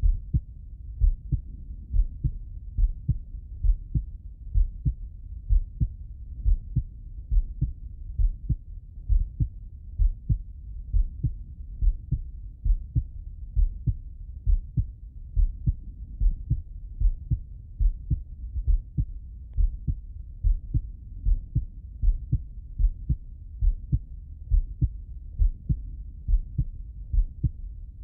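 A man's heartbeat heard through a stethoscope bell: muffled, deep thumps in a steady, slow rhythm of about one beat a second.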